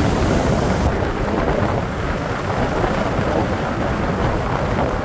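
Waterfall roaring steadily: a loud, even rush of falling water, the falls running high with run-off.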